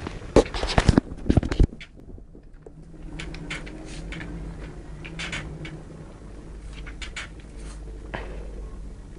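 Scuffling of a West Highland white terrier and a cat play-fighting: a quick run of loud clicks and knocks in the first two seconds, then scattered lighter clicks over a low steady hum.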